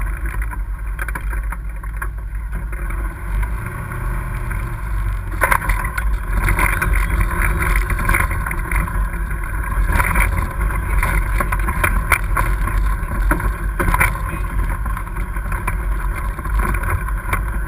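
Polaris RZR XP side-by-side running along a rough dirt trail: a steady engine drone with wind on the microphone, plus knocks and rattles from bumps. The knocks get more frequent and louder from about five seconds in.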